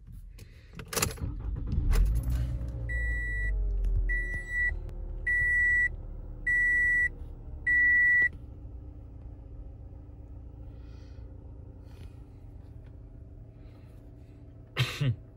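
A Toyota Camry's engine is started: after a couple of clicks it catches, the revs flare and fall back, and it settles into a steady idle. Over the start the dashboard chime beeps five times in an even rhythm, and a short loud knock comes near the end.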